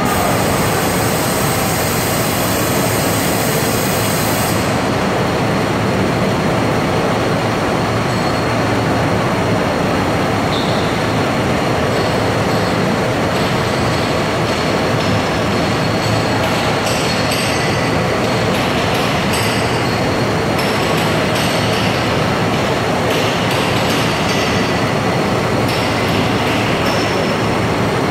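Bhagwati automatic line polishing machine running, its polishing heads working a granite slab with a loud, steady mechanical noise. A high hiss over it stops about four seconds in, and short high rasps come and go in the second half.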